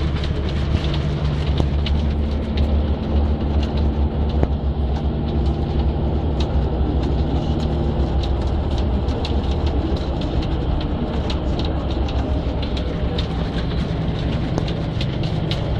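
Bus engine running, heard from inside the cabin, with hail and rain striking the windows and roof in many sharp ticks that come thicker in the second half.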